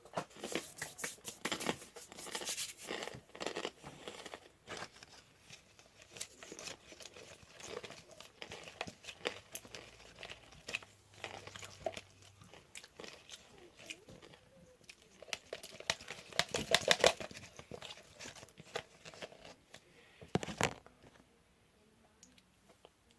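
Fabric-glue and laundry-detergent slime being stirred, irregular sticky squelching, crackling and spoon clicks, busiest at the start and about two-thirds of the way through, with one louder snap near the end. The slime has gone gooey and runny.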